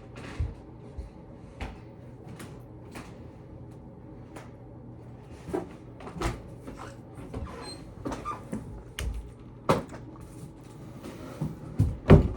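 Scattered knocks and clicks of objects being handled and set down, with the loudest knocks near the end.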